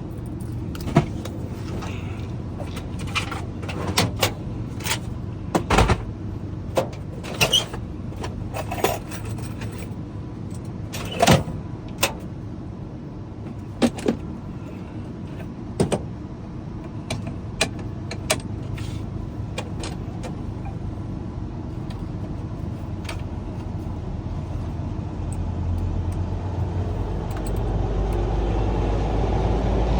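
Irregular sharp clicks and metallic clatter of keys, blanks and tools being handled while a key is set up for cutting, over a steady low hum. The clicks thin out after about 19 seconds, and a deeper low motor hum builds near the end.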